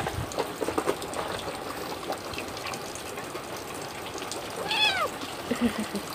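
A cat meows once, a short call that rises then falls in pitch, about five seconds in, over a steady wash of rain; a few faint clicks come near the start.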